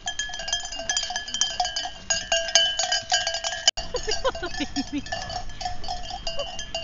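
Metal bells on a grazing flock of sheep clanking irregularly, with many quick, overlapping strikes ringing at the same few pitches.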